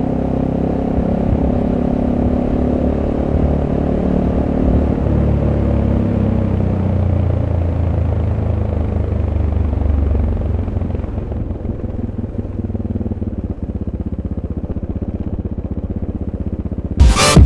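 SWM Superdual T motorcycle's single-cylinder engine with its stock exhaust, running steadily on the road. About ten seconds in it eases off and settles into a slower, even low beat like an idle. Electronic music cuts in at the very end.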